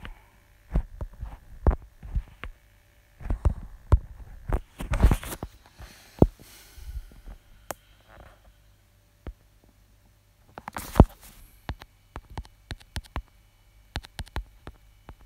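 Irregular taps and knocks of fingers on a phone's touchscreen and handling of the phone, with a quick run of light taps near the end as a word is typed on the on-screen keyboard, over a faint low hum.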